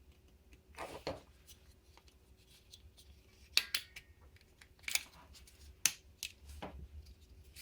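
Handling noise: a scatter of short clicks and knocks as small objects are picked up and moved about on a workbench, over a faint steady hum.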